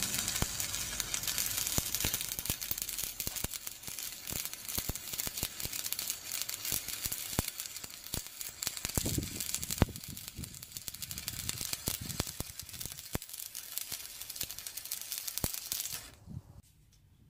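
Stick (MMA) welding arc running a bead on steel plate: a steady crackling hiss with scattered sharp pops. It stops abruptly near the end as the arc is broken.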